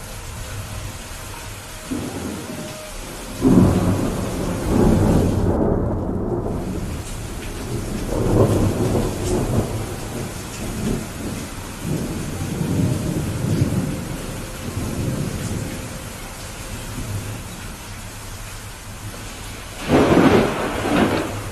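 Steady rain with thunder. A clap about three and a half seconds in rolls and rumbles for some ten seconds, and a second loud thunderclap breaks near the end.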